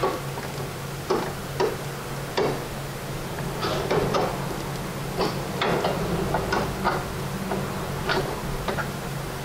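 Irregular light metallic clicks and taps as a replacement sway bar link's threaded stud is worked into its bracket and a nut is started on it by hand, over a steady low hum.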